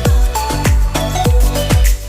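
Electronic dance-style background music with a steady kick-drum beat, about two thumps a second, under short synth notes.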